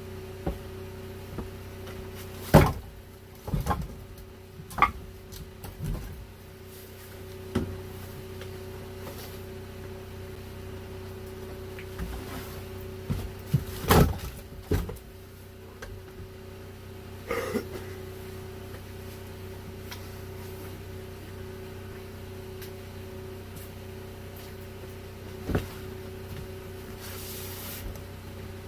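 Firewood being handled and stacked: scattered knocks and clunks of logs set down, the loudest a few seconds in and a cluster about halfway through, over a steady low hum.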